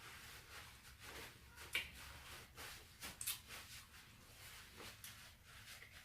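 Faint mouth sounds of someone eating: scattered wet clicks and lip smacks while chewing, the sharpest about two and three seconds in.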